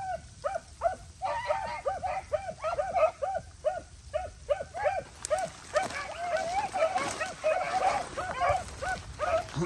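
Rabbit-hunting hounds baying on a rabbit's trail: a steady run of short, arching barks, about three a second, growing denser and overlapping from about halfway as several dogs give voice together.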